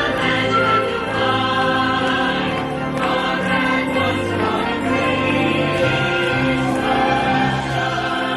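Music with a choir singing sustained notes over instrumental backing.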